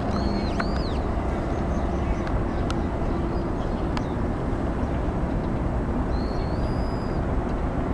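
Steady low outdoor rumble, with a bird giving short high whistled calls near the start and again for about a second around six seconds in.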